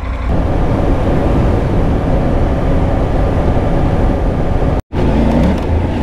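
Triumph Tiger 900 motorcycle at highway speed: heavy wind rush over the helmet-mounted microphone mixed with the inline-triple engine and road noise. The sound drops out for a split second near the end, and afterwards the engine's note stands out more clearly.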